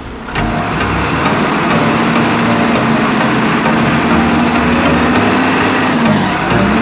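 Diesel engine of an XCMG LW300FN wheel loader running hard as the machine drives its bucket into a sand pile. The engine note sags briefly near the end, then picks up again.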